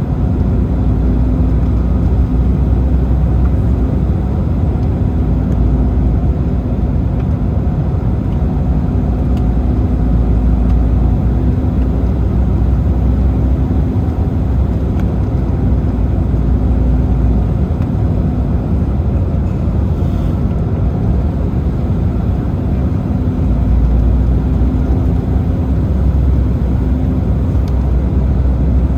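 Steady cabin noise of an Embraer 190 jet airliner with its engines running: a low, even rumble with a steady hum that fades for a few seconds in the middle and returns.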